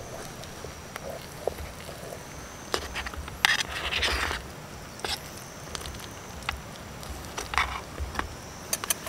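Metal spoon scraping and clicking against a stainless steel mess tin while scooping baked mussels in their shells: scattered short clicks, with one longer scrape about three and a half seconds in.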